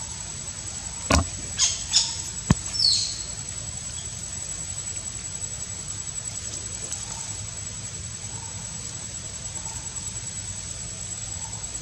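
Outdoor background with a steady high thin whine over a soft hiss. About one to two and a half seconds in come a few short sharp sounds, one a brief click, followed just before three seconds by a short high squeak falling in pitch.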